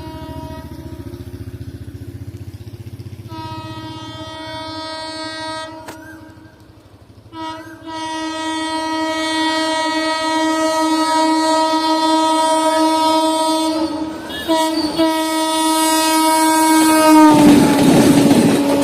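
Indian Railways locomotive horn sounding long blasts as a train approaches: a shorter one a few seconds in, then a long held one. Near the end the train rushes past at speed, with a loud noise of wheels on rails.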